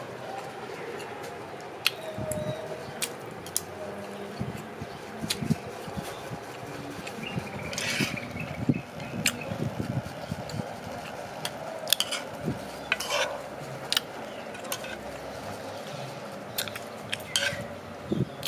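Metal spoon clinking and scraping against a serving tray while scooping up quail eggs, in scattered sharp clicks with a couple of longer scrapes.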